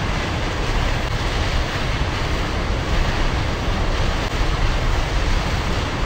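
White water pouring out of a dam outlet in a steady, loud rush of noise.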